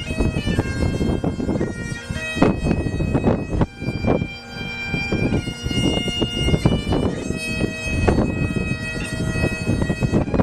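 A single wind instrument playing a slow ceremonial melody in held notes that change step by step, over a steady low rumble.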